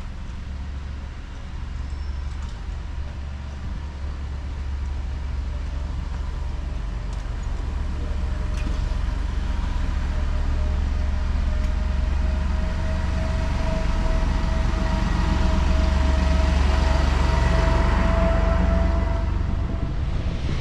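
Vehicle engine running steadily and growing louder, over a constant low rumble. A steady whine comes up about halfway through, grows stronger, and fades just before the end.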